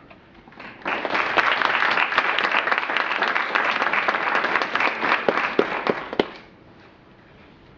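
Audience applauding, starting about a second in and dying away after about five seconds.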